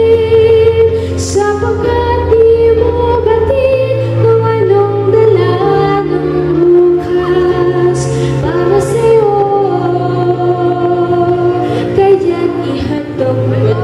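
A young woman sings a song solo into a microphone over an instrumental accompaniment whose sustained bass notes change every couple of seconds.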